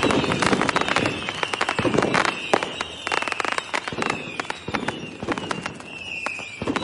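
Fireworks going off in a dense barrage of rapid crackles and pops, with heavier bangs now and then and high whistles that slide down in pitch.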